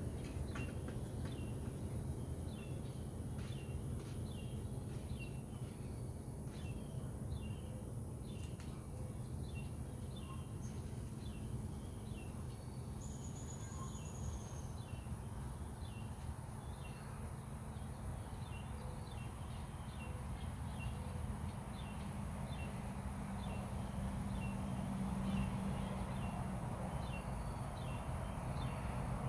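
Outdoor garden ambience: a short, high chirp repeated about twice a second over a steady low rumble.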